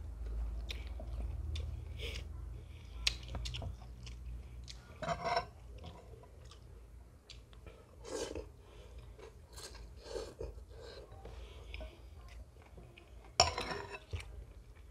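Close-up eating sounds of Khmer rice noodle soup (nom banh chok): chewing, and noodles being sucked in from chopsticks about halfway through, with short clicks throughout and one sharper knock near the end.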